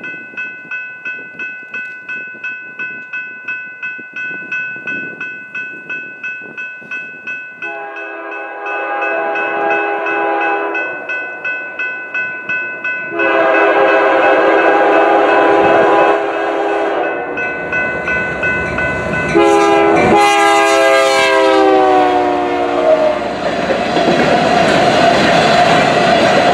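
Grade-crossing bell dinging about twice a second as a BNSF freight train approaches. The locomotive's air horn sounds three long chord blasts over it, and the last one drops in pitch as the engines pass. After that, hopper cars roll by loudly with clickety-clack from the wheels on the rail joints.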